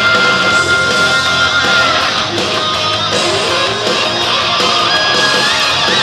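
Rock music led by electric guitar, with a long held guitar note through the first two seconds over a steady accompaniment.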